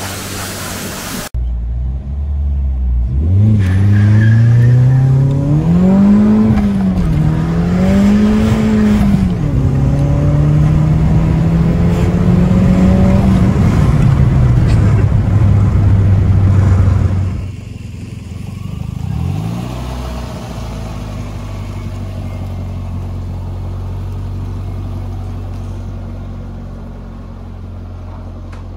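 Turbocharged Toyota Yaris TS 1.5-litre four-cylinder (1NZ-FE) heard from inside the cabin, accelerating with its pitch climbing through two gear changes, then holding steady and easing off. After a cut it gives one short rev and settles into a steady idle. Pressure-washer spray is heard briefly at the very start.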